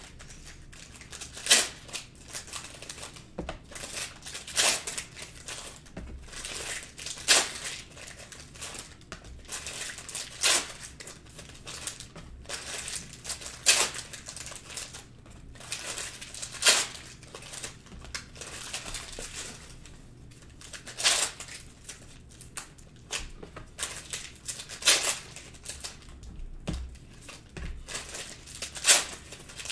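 Foil trading-card pack wrappers being torn open and crinkled by hand, with sharp crackles every second or two.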